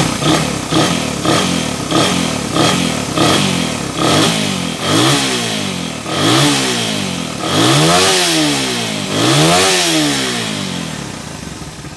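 Suzuki Raider 150's single-cylinder four-stroke engine revved on the throttle: a run of quick blips, about two a second, then three longer revs that each climb and fall over a second or so, easing back down near the end. It is being tested after its carburetor was cleaned and tuned and its idle raised.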